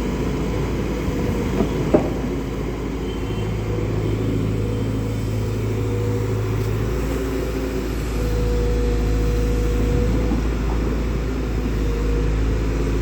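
Truck engine running steadily with road rumble while driving, with one sharp knock about two seconds in.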